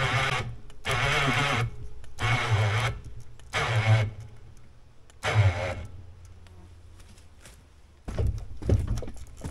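Electric winch run in short pulls, five in a row about a second apart, winding in cable to lift a log's end off the ground on an ATV log arch. It stops about halfway through; some knocking and clatter follows near the end.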